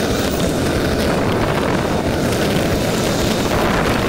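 Steady wind rush on the microphone of an action camera mounted on a road bike riding at race speed.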